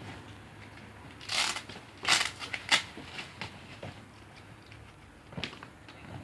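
Cricket kit bag being opened and handled: a few short rustling, rasping bursts from the bag's fabric and contents, the loudest about two seconds in.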